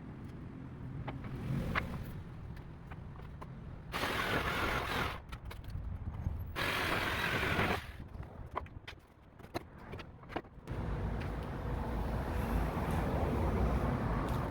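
Wooden crate boards being worked apart: scattered sharp knocks and creaks, with two longer scraping noises a few seconds in. A steady low rumble comes in about two-thirds of the way through.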